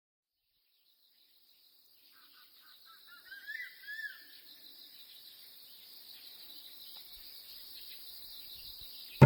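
After about two seconds of silence, an outdoor nature recording fades in. A steady, high-pitched chorus of insects grows slowly louder, and a bird gives two short chirping calls near its start.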